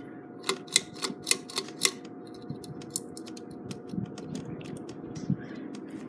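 Pull-chain speed switch on a 1985 Crest 4000 Series ceiling fan clicking about six times in quick succession within the first two seconds as it is stepped to high, followed by a few lighter ticks. The fan motor's faint steady hum runs underneath.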